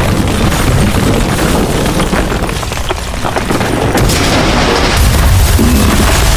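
Homemade sound effects for a skyscraper collapsing: a continuous loud rumble full of crackles and booms. It dips briefly in the middle, then swells into a deeper, heavier rumble about five seconds in.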